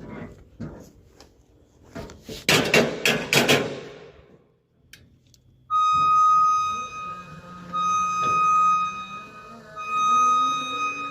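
Ceiling drywall being broken down: a few knocks, then a burst of cracking, crumbling impacts about two to three and a half seconds in. About six seconds in, music starts with a high, held melody line.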